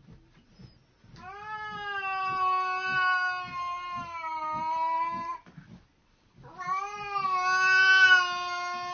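A cat giving two long, drawn-out meows, each held at a steady pitch for several seconds, with a short pause between them.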